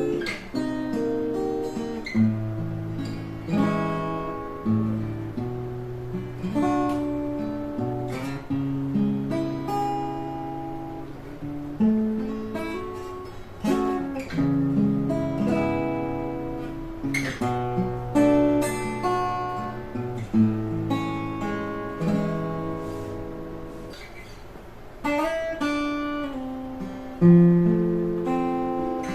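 Clifton A2 Series solid-top acoustic guitar being played: chords picked and strummed and left to ring, a new chord struck about every one to two seconds.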